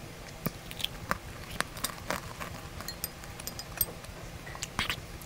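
Mouth sounds of chewing a crunchy white-chocolate Pepero cookie stick: scattered short crunches and wet smacks.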